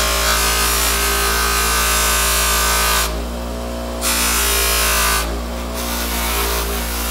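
Ryobi bench grinder running with a steady motor hum under the hiss of a small steel lantern part pressed against its spinning polishing wheel. The hiss drops away twice, about three seconds in and again a little after five seconds, as the part is lifted off the wheel.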